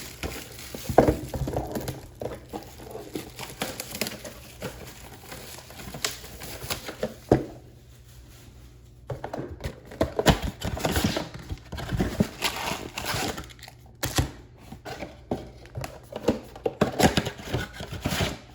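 Trading card boxes and packs being handled and opened: irregular crinkling and tearing of wrapping with light cardboard knocks, easing off briefly about eight seconds in.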